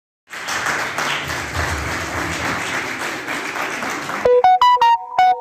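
Audience applauding. About four seconds in, the clapping gives way to a quick run of short electronic beeping notes.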